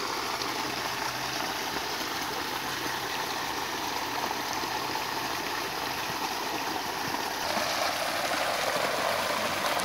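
Creek water flowing through a net trap, a steady rushing hiss. About eight seconds in it swells a little as water drains from a shrimp net into a plastic bucket.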